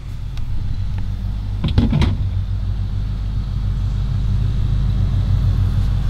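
BougeRV 30-quart 12V compressor fridge running: a steady low hum that slowly gets louder, with a couple of brief knocks about two seconds in.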